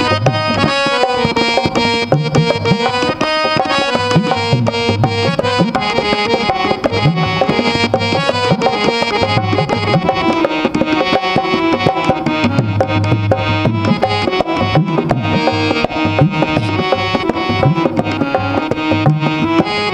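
Harmonium and tabla playing an instrumental interlude of a Bundeli folk song: a reedy keyboard melody over a steady tabla beat.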